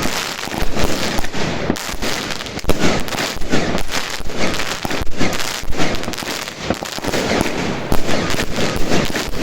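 Evolution 'Snowstorm 1.0' firework cake firing, a dense, irregular run of sharp pops and crackles with no let-up.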